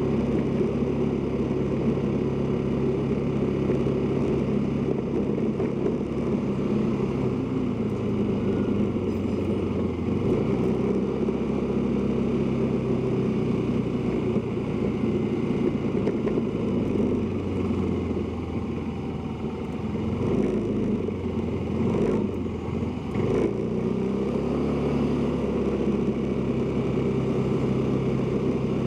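Motorcycle engine running under way, with road and wind noise. Its note changes several times, easing off and dropping in loudness about two-thirds of the way through, then picking up again.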